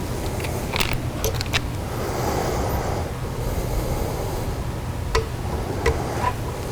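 Small metal clicks and taps, about five scattered through, as carbon brushes and brush springs are handled and fitted into an edger motor's brush holders, over a steady low hum.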